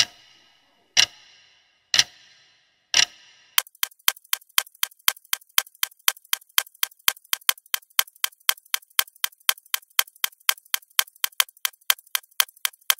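Clock-ticking sound effect: four sharp ticks a second apart, then a quicker, even ticking of about four ticks a second.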